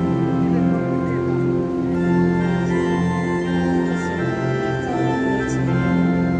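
Organ music: slow, held chords that change every second or two.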